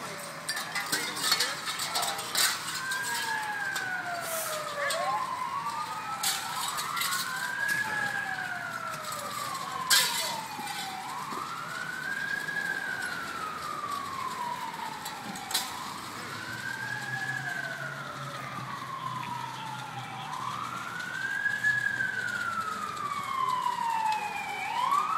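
Emergency vehicle siren in wail mode, sweeping up quickly and falling slowly about once every four to five seconds, with a fainter second siren overlapping and a higher one starting near the end. Several sharp knocks cut through it, the loudest about ten seconds in.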